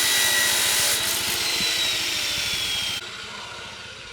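Power tool cutting: a loud hissing whine whose pitch sags slightly, stopping abruptly about three seconds in.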